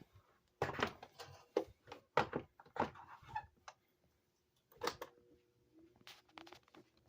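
A run of sharp knocks and clicks from a plastic table fan being handled, with a few more later. A faint steady hum comes in about five seconds in.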